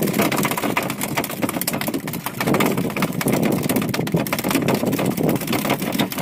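Steady rough rumbling noise aboard a small open fishing boat at sea, with no clear engine note.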